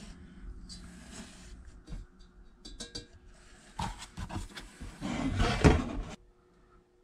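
Parts being handled and worked by hand: irregular rustling and scraping with a few sharp knocks, loudest about five seconds in, then stopping abruptly about six seconds in.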